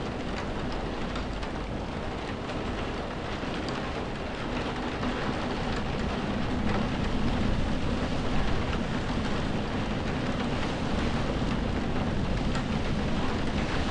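Heavy, steady rain heard from indoors, countless drops pattering on window glass, with a low rumble that swells a little louder about halfway through.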